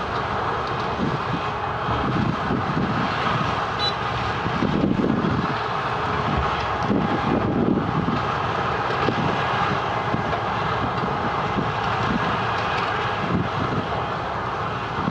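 Wirtgen W210i cold milling machine running steadily under load, its diesel engine and milling drum making a continuous heavy drone that swells and eases slightly.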